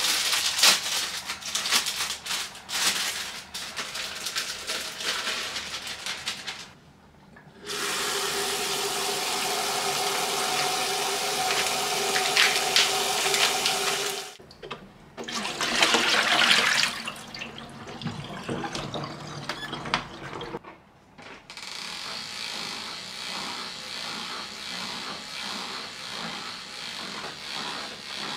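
Clicking and rustling as a pack of baby leaves is opened and handled, then a kitchen tap runs steadily onto the leaves in a plastic salad-spinner basket in a stainless-steel sink, with a short break and more splashing. In the last seconds there is a steady whirring as the plastic salad spinner is spun.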